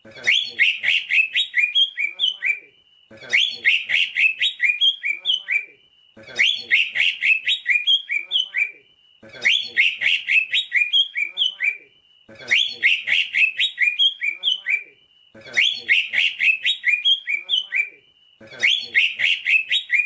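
Cucak ijo (green leafbird) singing: a fast, chattering phrase of sharp high notes about two and a half seconds long, ending in a short whistle, repeated about every three seconds, seven times over.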